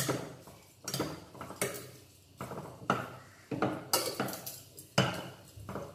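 A metal spoon knocking and scraping against a stainless steel pressure cooker as raw beef is mixed with salt and crushed spices: a string of about eight uneven metallic clinks, each ringing briefly.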